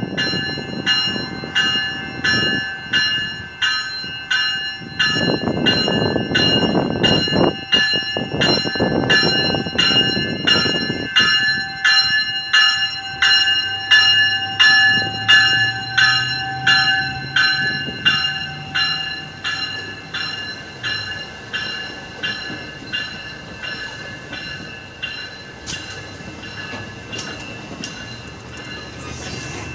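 AMT commuter train of Bombardier bilevel coaches running past, its rumble loudest from about five to eleven seconds in. Over it a warning bell rings about one and a half times a second, growing fainter in the last third.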